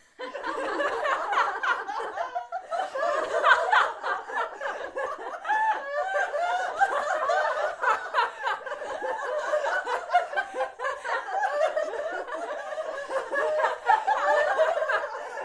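A group of people laughing and chuckling without pause, many voices overlapping, starting abruptly out of silence.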